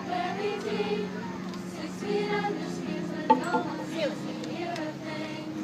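A young female voice singing over a backing track of music. About halfway through there is a single sharp knock.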